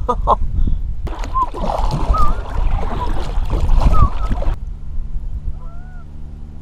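Heavy wind buffeting the microphone with knocks and splashy noise, while geese honk a few times; about four and a half seconds in the wind noise cuts off suddenly, leaving a quieter steady low hum with more goose honks.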